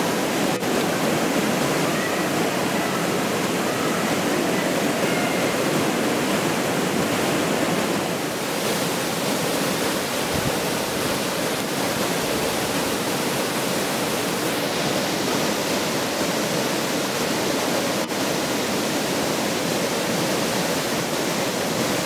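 Waterfall pouring down a rock face into a pool: a steady, loud rush of falling water. Its tone shifts slightly about eight seconds in and again a little later.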